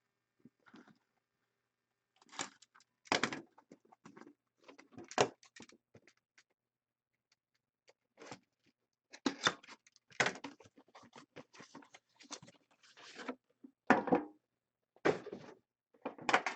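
Irregular rustling, crinkling and small taps of trading-card packaging being handled and opened by hand, in short scattered bursts with pauses between.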